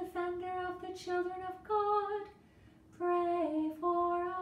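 A woman chanting a litany unaccompanied, mostly on one reciting pitch in short syllables. The pitch steps up on one phrase about two seconds in and dips briefly near the end.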